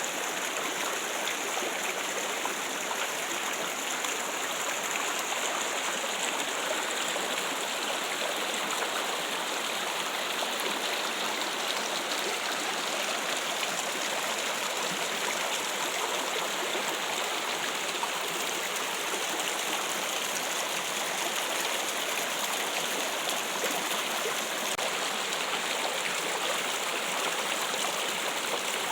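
Water running steadily over rocks, like a small stream, with a continuous trickling rush.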